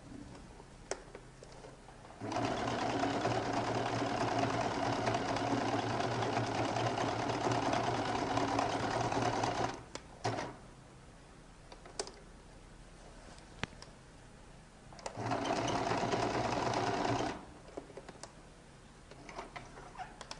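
Domestic electric sewing machine stitching a buttonhole: a long steady run of about seven and a half seconds, a short burst, then a second run of about two seconds. Small clicks from handling the machine and fabric come between the runs.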